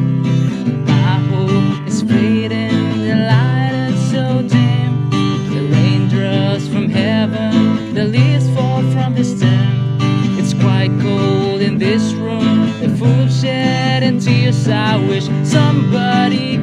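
A man singing in English to his own strummed acoustic guitar.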